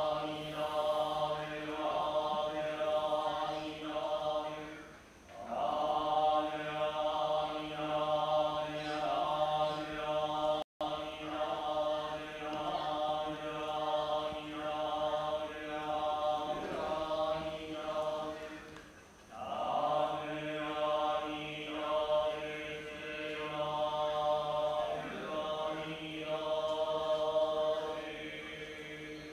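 Buddhist monks chanting together on a steady pitch in a rhythmic monotone. The long phrases break briefly for breath about five and nineteen seconds in, and the chant fades near the end.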